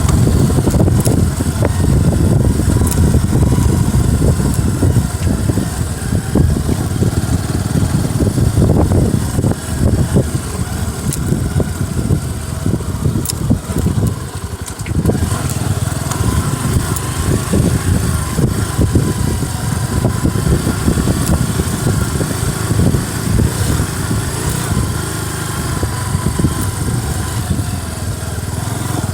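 Motorcycle engine running under way, the revs and load rising and falling unevenly, with a short easing off about halfway through.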